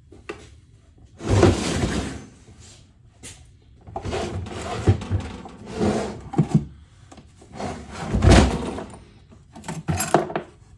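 Objects being moved out of the way and set down, with five bursts of scraping and clunking, the loudest about a second in and about eight seconds in.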